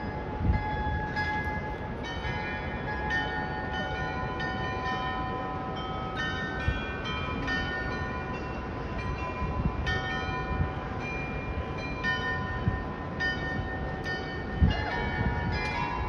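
The bells of the Munich New Town Hall Glockenspiel playing a tune: notes struck one after another and ringing on, several sounding together. A steady low rumble runs underneath.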